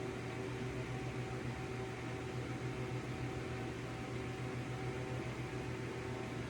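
Steady hum and hiss of a running kitchen appliance fan: a constant low drone with a few faint steady tones over it, unchanging throughout.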